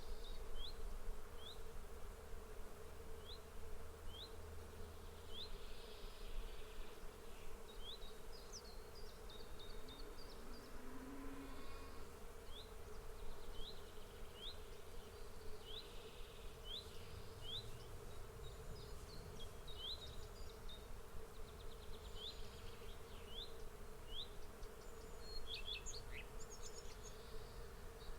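Swarm of bees buzzing as a steady drone, with short high chirps from a bird repeating about once a second over it.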